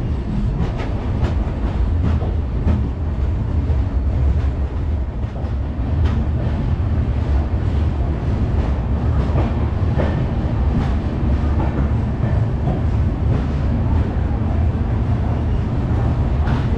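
Telangana Express passenger coaches rolling into a station, heard from the open coach doorway: a steady low rumble of the running gear with irregular clacks as the wheels pass over rail joints.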